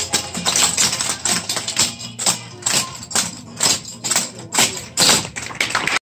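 Clog taps on the dancers' shoes striking a hard floor in a rhythmic clatter, the sharp strikes coming about two a second in the second half, over background music.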